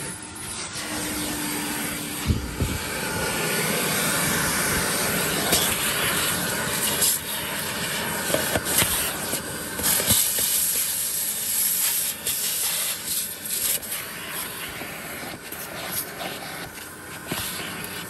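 1969 Electrolux Model 1205 vacuum cleaner running, sucking through its crevice tool over car carpet and seat trim: a steady rushing hiss of air that rises and falls as the nozzle moves, with scattered sharp clicks.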